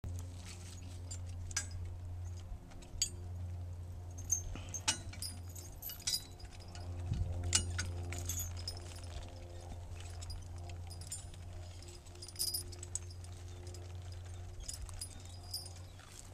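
Scattered metallic clinks and jingles of harness and pulley hardware as draft horses are hooked up, over a steady low hum.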